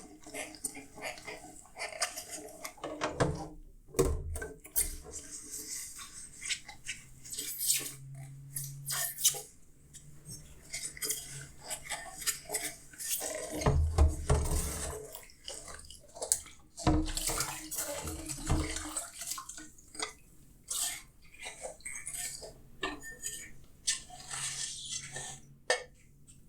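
Dishes being washed by hand: plates and cutlery clinking and knocking against each other in a sink, with splashing water and a few heavier thuds.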